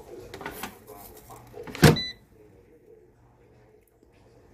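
Gourmia air fryer basket slid shut with a scraping rattle, ending in a loud clunk about two seconds in, followed at once by a short electronic beep from the fryer.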